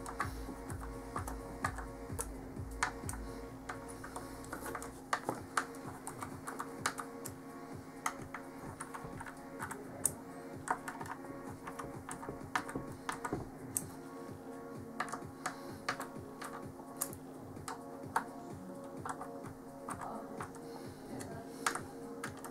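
Irregular sharp clicks and taps of a small screwdriver working the spring-loaded screws of a motherboard cooling block into place, with steady background music under them.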